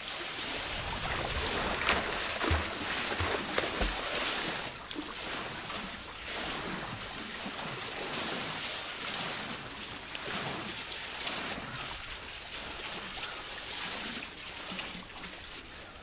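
Swimming-pool water lapping and splashing close to the microphone, with a few low thuds about two to four seconds in; the splashing slowly gets quieter toward the end.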